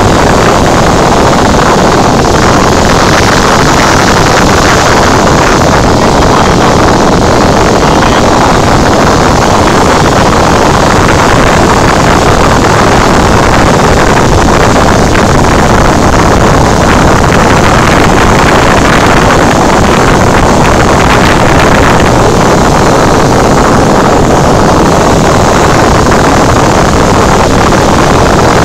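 Loud, steady cabin noise of a Cessna 172 in level flight: the piston engine and propeller running at a constant setting, mixed with air rushing over the airframe, heard from inside the cockpit.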